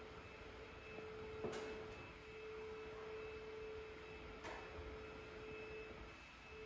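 A faint, steady hum at a single pitch, with two soft clicks about three seconds apart.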